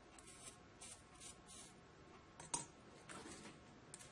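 Near silence with a few faint, short rustles and one light click about two and a half seconds in: small tools and a metal container being handled on a workbench.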